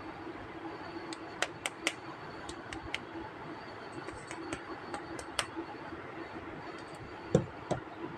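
Small plastic toy figures being handled and unpacked: scattered light clicks and taps over a faint steady hum, with a duller, louder knock near the end.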